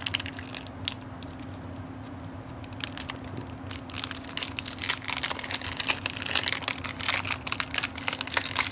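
Plastic shrink-wrap crinkling and tearing as it is pulled off a speed cube's display case. The crackling is dense at the start, eases off for a couple of seconds, then comes back busier.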